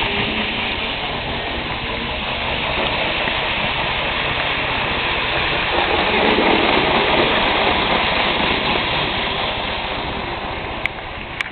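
N-scale Kato model of the AVE Series 100 train running on its track, the sound swelling as it passes close by about six seconds in. A couple of sharp clicks near the end.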